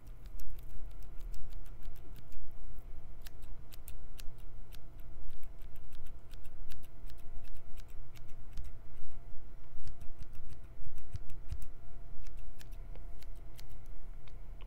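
Hair-cutting scissors snipping repeatedly in quick, irregular runs of crisp clicks.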